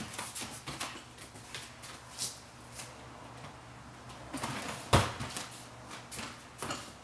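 Bare hands and feet thumping and padding on a folding gymnastics mat during tumbling, a few soft thuds with one louder landing thump about five seconds in.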